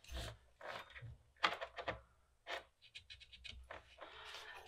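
Felt-tip marker scratching in short strokes across the tops of electrolytic capacitors on a power-supply circuit board, a string of quick, faint scratches with brief pauses between them.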